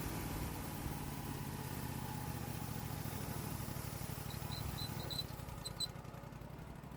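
Portable band sawmill's engine running steadily, easing slightly lower about five seconds in.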